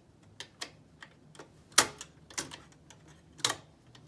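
Oliver No. 6 typewriter's mechanism clicking and clacking irregularly as it is tried out after reassembly, with a loud strike a little under two seconds in and another about three and a half seconds in. The machine is not working right: a displaced bar is making it stick.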